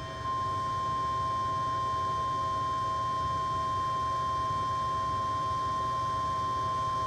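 Weather radio's 1050 Hz warning alarm tone: one steady, unbroken high tone, the attention signal that comes just before a broadcast severe thunderstorm warning.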